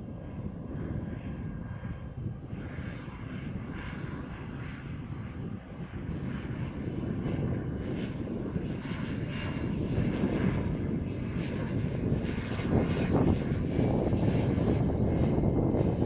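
Pilatus PC-6 Porter's turboprop engine and propeller running as the aircraft touches down and rolls out along the runway, growing louder as it comes closer.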